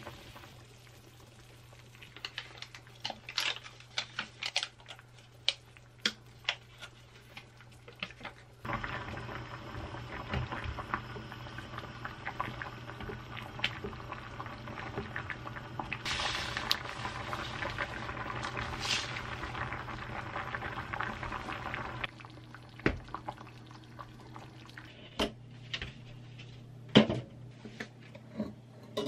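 Curry simmering and bubbling in a ceramic-coated pan, with a wooden spatula stirring and tapping against the pan. The bubbling becomes louder and steadier about nine seconds in. In the last few seconds come a few sharp clinks of chopsticks against a metal air fryer basket.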